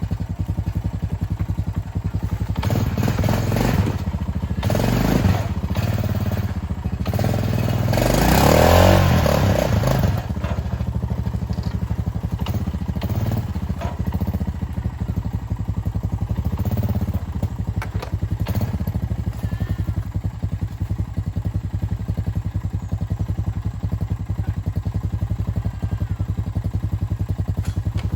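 Gasoline engine of a Chinese mini excavator running steadily while it digs. There are louder noisy stretches with thuds and clatter about three to five seconds and eight to ten seconds in.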